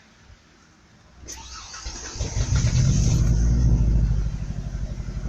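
Truck engine cranked by the starter about a second in, catching and running strongly, then settling after a couple of seconds into an uneven, pulsing idle. The stumbling running is typical of fuel starvation, which the owner takes for running out of gas.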